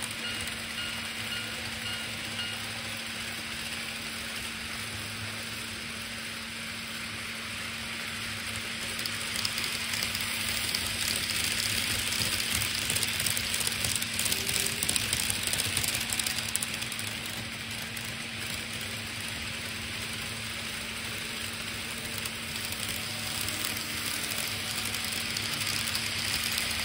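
Model railway trains running on a layout: a steady low hum with the rushing rattle of motors and wheels on the track, which swells as trains pass close by, about nine seconds in and again near the end.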